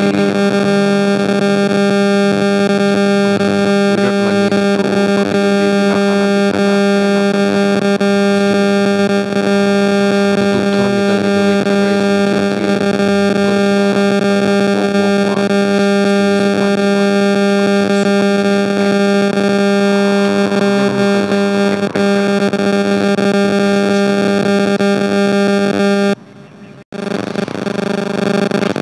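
Synthesizer music built on a steady, held low drone chord. It cuts off suddenly near the end, leaving a brief quieter stretch.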